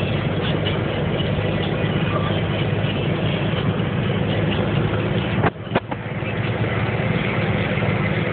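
Steady engine and road drone heard from inside the cab of a moving vehicle on a highway. About five and a half seconds in the sound drops out for a moment, with two sharp clicks close together.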